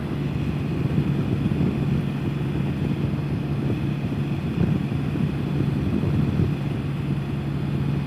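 Can-Am Spyder F3 Limited's three-cylinder engine running at a steady cruise, a constant hum under wind and road rush.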